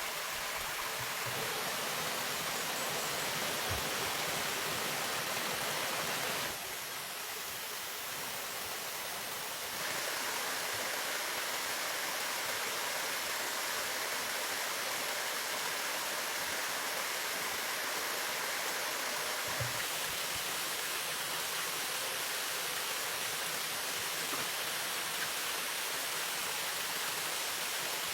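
Steady rushing of flowing water, a little softer for a few seconds from about six and a half seconds in.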